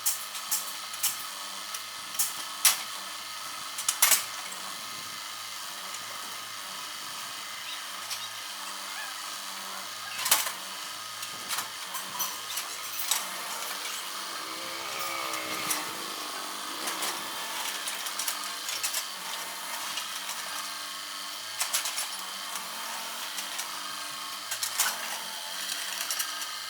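Excavator running steadily during demolition, with repeated sharp cracks and knocks of material breaking and debris striking, the loudest a few seconds in and about ten seconds in.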